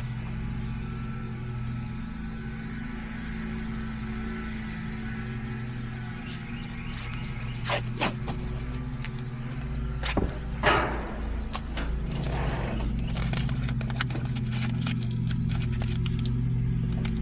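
A steady low motor hum runs under close handling noises: scattered clicks, a short ripping rasp about ten and a half seconds in, and quick small ticks toward the end, as tape is pulled off and pressed over the open refrigerant lines.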